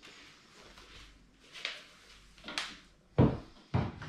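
A white board being handled and set into a flat-pack wardrobe cabinet: light rustling and scraping, then a series of knocks, ending in two heavy hollow thumps about half a second apart as the board hits the cabinet's panels.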